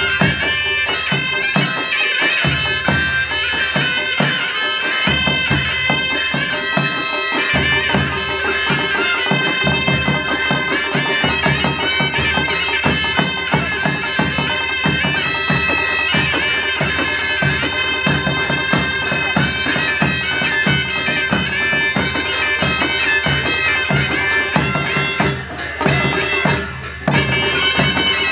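Nepali panche baja band playing: a loud, reedy wind-instrument melody over a steady beat of hand drums and cymbals. The level dips briefly twice near the end.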